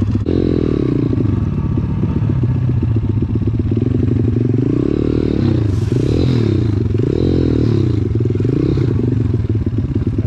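Pit bike's single-cylinder four-stroke engine being ridden hard and close, its pitch rising and falling again and again as the throttle is opened and eased off.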